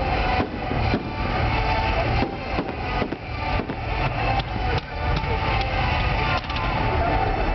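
Festa fireworks going off in a dense, irregular string of bangs and crackles, many reports a second, over a continuous din.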